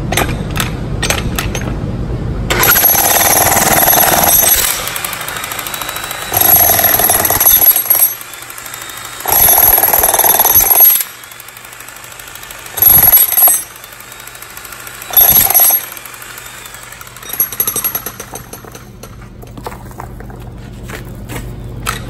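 Pneumatic jackhammer chiselling into a slab of ordinary concrete in about five bursts of one to two seconds each, breaking the slab into chunks. A steady low hum runs underneath between the bursts.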